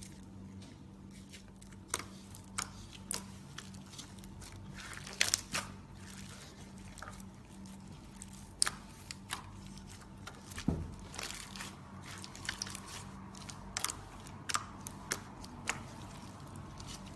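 Foam slime being squeezed and poked by hand, giving irregular crunchy crackles and sharp pops, with a steady low hum underneath.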